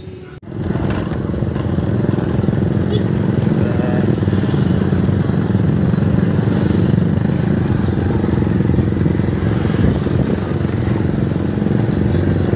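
Close, steady running of motor-vehicle engines, the odong-odong road train and the motorcycles beside it, heard from a moving vehicle. It starts suddenly and loud about half a second in.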